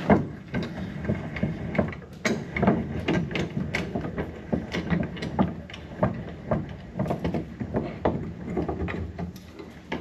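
A tractor hydraulic cylinder rod knocking and clanking against a steel bench vise as it is set in the jaws and the vise is tightened on its eye: a run of irregular metal knocks, several a second.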